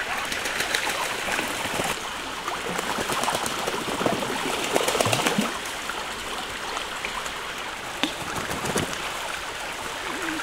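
Domestic ducks bathing in a shallow stream: steady splashing and gurgling water, busiest about four to five seconds in.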